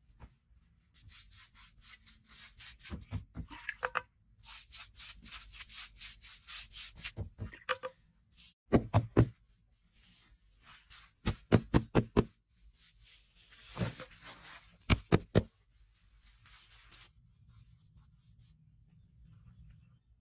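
Hands rubbing and pressing grass sod into soil. Runs of quick scraping strokes come first, then several short groups of dull thumps as the clumps are patted down.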